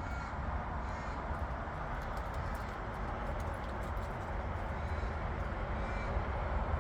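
Steady outdoor background noise with a few faint bird calls.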